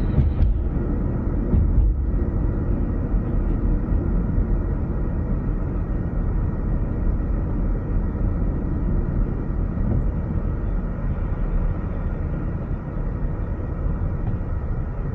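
Car driving at a steady speed on an open road: an even, low engine and tyre noise that neither rises nor falls.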